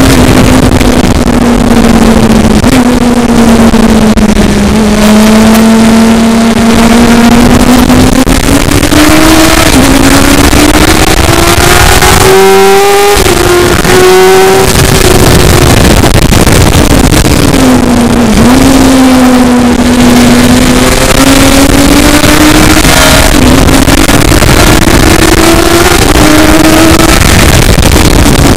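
A motor vehicle's engine runs hard, its pitch climbing and dropping over and over, with sharp drops a few times, over a dense steady rushing noise.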